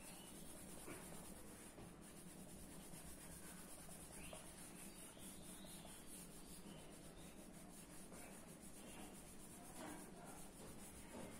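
Faint rubbing of a bare hand wiping marker ink off a whiteboard.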